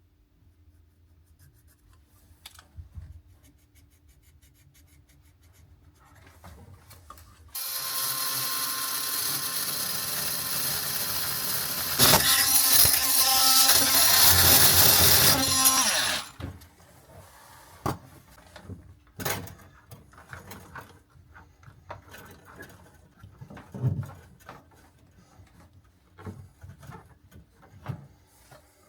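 A power tool runs for about eight seconds with a steady whine, getting louder partway through, then cuts off. Scattered knocks and clatter of tools being handled follow.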